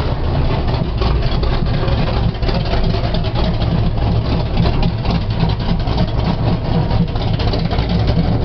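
Spark-ignition engine idling steadily with a deep rumble just after catching. The mechanic guesses its ignition timing is slightly advanced.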